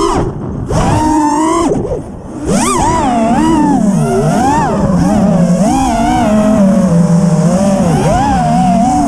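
FPV quadcopter's brushless motors whining, the pitch rising and falling constantly with throttle; the throttle is cut twice briefly in the first couple of seconds.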